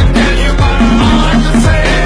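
Loud background music: a song with a deep, sustained bass and a booming kick drum that hits several times a second.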